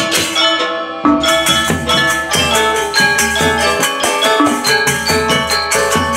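Balinese gamelan gong ensemble playing a lelambatan piece: bronze metallophones struck with mallets ring in interlocking patterns over gongs, with fast clashing ceng-ceng cymbals. The playing thins briefly just under a second in, then the full ensemble comes back in with a strong accent.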